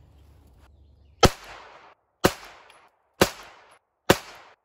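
Four shots from a 9mm pistol without a suppressor, about one a second. Each is a sharp crack with a short echo that dies away in about half a second.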